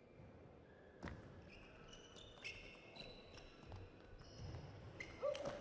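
Table tennis rally: sharp clicks of the celluloid-type ball off bats and table, with rubber-soled shoes squeaking on the court floor between shots. A louder hit comes near the end.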